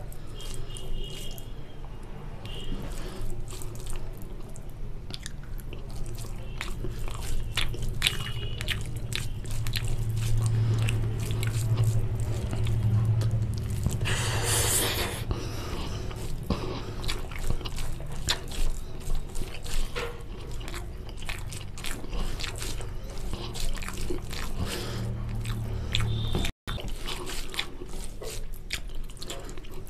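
Close-miked eating by hand: fingers squish and mix basmati rice with dry chicken curry on a steel plate, and mouthfuls are chewed with wet smacking and clicking mouth sounds. A louder wet burst comes about halfway through as a handful goes into the mouth.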